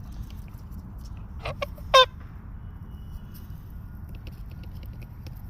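Goose honking: two short honks about a second and a half in, then one loud honk right after.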